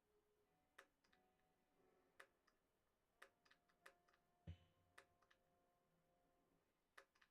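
Near silence: about a dozen faint scattered clicks and ticks over a faint steady hum, with one soft low thump about four and a half seconds in.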